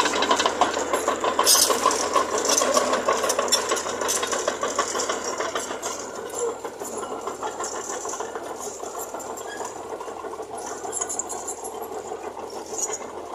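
Diesel engine of heavy earth-moving machinery running, with a fast, continuous mechanical rattle; it is loudest over the first few seconds and then eases off a little.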